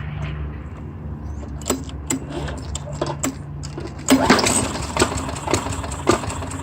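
Craftsman lawn mower's 4.5 hp Tecumseh engine being pull-started: clicks and rattles of the recoil starter, with one louder pull about four seconds in, and the engine does not catch. A steady low hum lies underneath.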